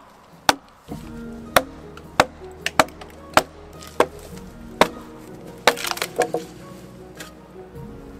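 Wooden mallet striking wedges driven into a log to split it lengthwise: about seven sharp wooden knocks, spaced half a second to a second apart, then a quick cluster of cracks and knocks about six seconds in. Background music with held tones plays underneath.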